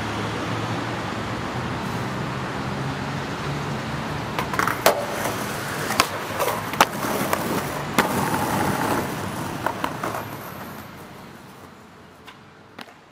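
Skateboard trick on a metal stair handrail: sharp wooden clacks of the board popping, striking and leaving the rail, a short metallic grind as it slides down, and landing clacks. Steady street traffic rumbles underneath, and everything fades out near the end.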